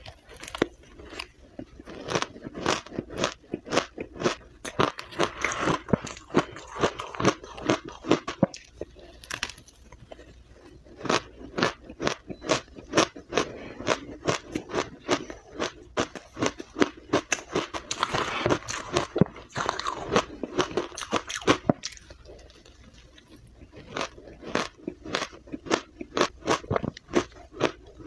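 Powdery blended ice dusted with matcha being bitten and chewed up close: a dense run of crisp crunches and crackles, easing off briefly about three-quarters of the way through before picking up again.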